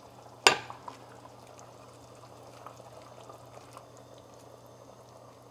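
Pot of zucchini and chicken stew simmering, a faint, steady bubbling with small ticks. There is a single sharp click about half a second in.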